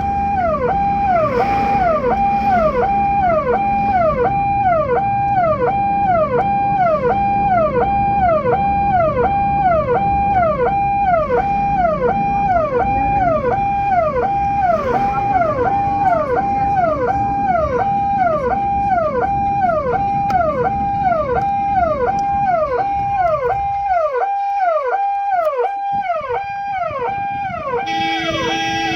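Electronic ambulance siren sounding in quick, even cycles, each a held tone that drops sharply in pitch, over a low rumble that falls away about 24 seconds in. A short, different steady buzzy tone sounds near the end.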